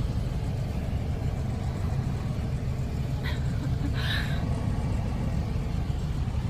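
Steady low rumble of a car's engine and road noise heard from inside the cabin, with a couple of short higher-pitched sounds about three and four seconds in.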